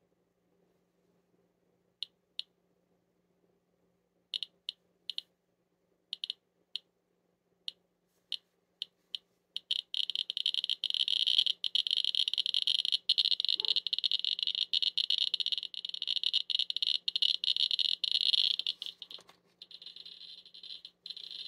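Inspector EX Geiger counter clicking: a few scattered clicks, then about halfway through the rate jumps to a rapid, almost continuous chatter as its probe is held at the neck over iodine-131 taken up by the thyroid, easing slightly near the end.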